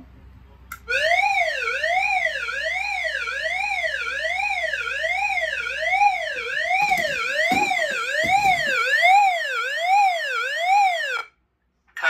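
Fire alarm agent release signal from a voice-evacuation speaker: an electronic tone sweeping evenly up and down in pitch, a little over one sweep a second, which announces that the suppression releasing system has been activated. It starts about a second in and cuts off suddenly near the end.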